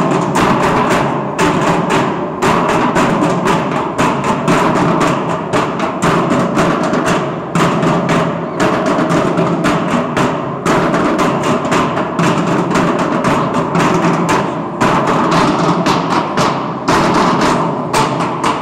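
A percussion band beating steel oil drums with wooden sticks, many players together in a steady, driving rhythm.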